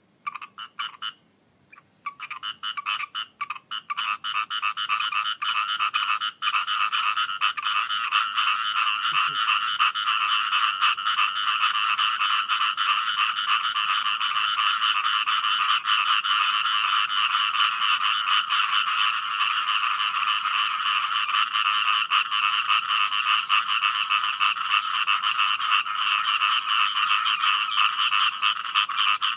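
Frogs croaking: a few separate calls at first, swelling within a few seconds into a dense, continuous chorus of rapid croaks.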